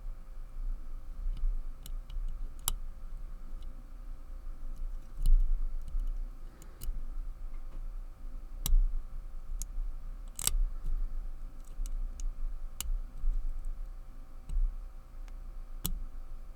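Irregular small metal clicks and ticks from a lever pick and tension wrench working the levers inside a Walsall 2000 five-lever padlock, a handful of them louder, over a low steady hum.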